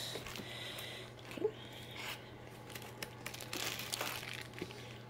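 Plastic packaging crinkling and cardboard rustling as a hand rummages in an open box and pulls out a plastic-wrapped attachment, with irregular small crackles and rustles.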